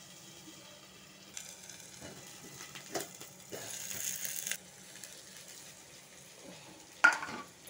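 Chopped onion, garlic and green chilli sizzling in hot oil in a steel kadhai covered with a steel plate lid. The sizzle grows louder for a few seconds in the middle, with light metal clinks, as the lid is handled. A sharp metal clank comes near the end.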